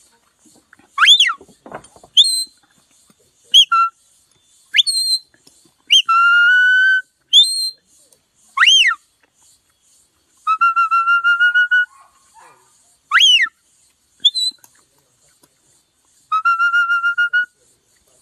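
Herding handler's whistle commands to a working cattle dog: a series of sharp whistled signals, some swooping up and down, some short upward chirps, and three long held notes, the later two warbled.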